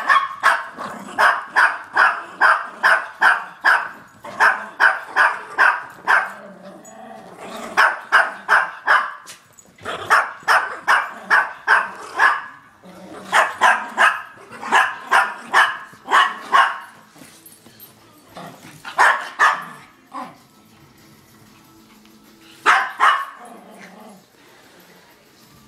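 Yorkshire terrier barking during play: rapid, high yappy barks, about three to four a second, in several runs separated by short pauses. The runs grow shorter and end with a lone bark or two near the end.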